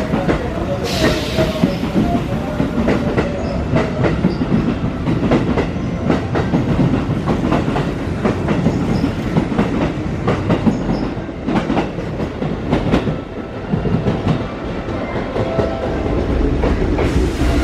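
Hanshin electric commuter train moving along the platform, its wheels clattering quickly and continuously over the rail joints as the cars pass. A steady whine begins near the end.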